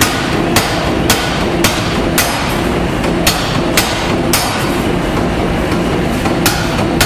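Massey power hammer forging a red-hot steel bar: heavy, evenly spaced blows about two a second over a steady mechanical rumble, with a short break a little past halfway.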